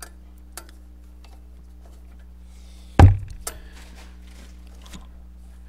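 Hand work in a car's engine bay while fitting an A/C compressor belt: a few small clicks, then one heavy thump about three seconds in, followed by several lighter clicks and rattles, over a steady low hum.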